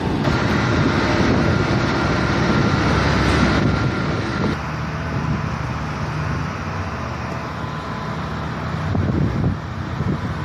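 Recycled flush water rushing along a dairy barn floor, a steady, loud noisy wash, with a low motor hum running underneath.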